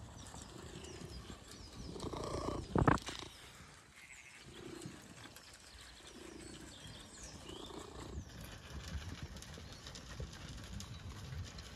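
Sheep and a small dog eating feed at a trough, with birds singing in the background and one sharp knock about three seconds in.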